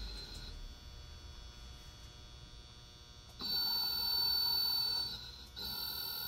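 High-pitched electrical whine with a buzz from a Mitsubishi HA-LH11K2 servo motor being powered by its drive for testing. It switches on sharply about three and a half seconds in, cuts out for about half a second near five seconds, then comes back. Before that there is only a faint mains hum.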